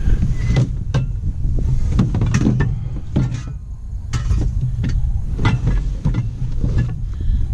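A string of close knocks, clicks and rustles from gear being handled right by the microphone, over a steady low rumble.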